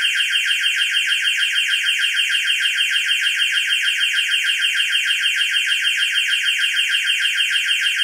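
Countdown timer's electronic alarm sounding at zero to signal that time is up: a high, rapidly pulsing tone repeating evenly several times a second.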